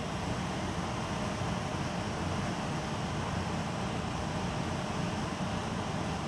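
Steady background noise: a low rumble with a faint hiss over it, unchanging throughout.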